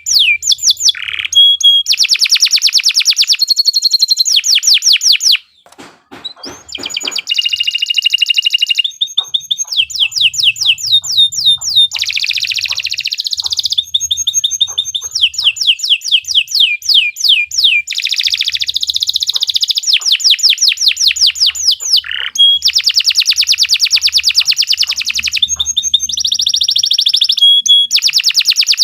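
Domestic canary singing a long song of fast, high trills, each run of repeated notes giving way to the next, with a brief pause about six seconds in.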